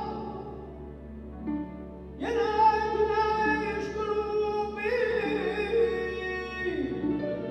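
A singing voice holding long notes with instrumental accompaniment, with a new phrase entering about two seconds in and another about five seconds in.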